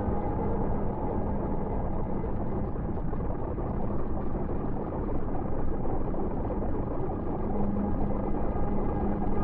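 Dark ambient drone music: a dense, steady rumbling noise with several held tones above it, the lowest tone swelling in again near the end.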